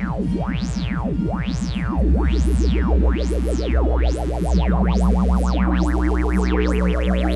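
Make Noise modular synthesizer tone through the QPAS stereo filter, its resonant peaks sweeping up and down about once a second under LFO modulation. About two seconds in the low drone gets louder, and from about four seconds a second, independent modulation adds a much faster warbling sweep that climbs in pitch.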